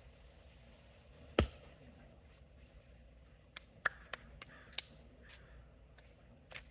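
Axe striking a large log once with a sharp chop, followed by a few lighter knocks and taps a couple of seconds later. The log is not splitting.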